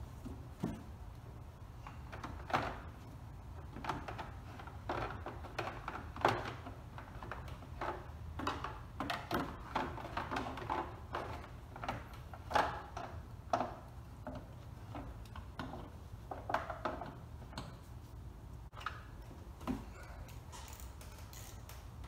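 Plastic engine cover of a Ram 1500's 3.6L Pentastar V6 being handled and fitted back over the engine: a run of irregular plastic clicks, knocks and rattles, with a few sharper knocks, over a steady low hum.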